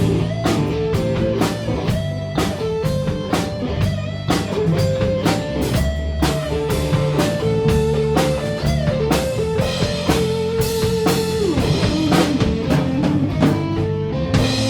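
Live blues-rock band playing an instrumental passage: a lead guitar line with bent, sliding notes over drum kit and bass.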